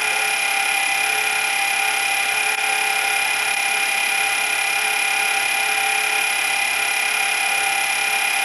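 Film projector running: a steady mechanical whirr with a constant high whine that does not change.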